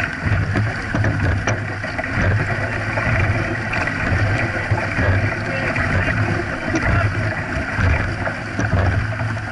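Dragon boat under way at racing pace: water rushing and splashing along the hull and paddles, pulsing about once a second with the crew's strokes, with wind on the microphone.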